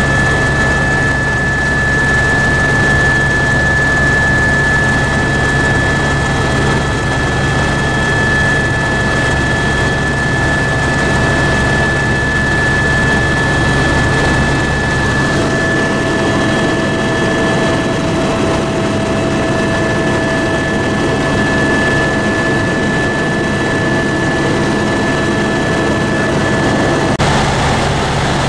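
Tour helicopter in flight, heard from inside the cabin: a loud, steady drone with a constant high whine. About halfway through, the deep low rumble thins out and a second, lower whine joins in until shortly before the end.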